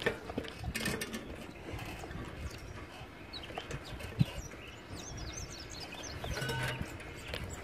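Huffy beach cruiser bicycle rolling along a concrete path, rattling and clicking, with a sharp knock about four seconds in. Birds chirp in the background.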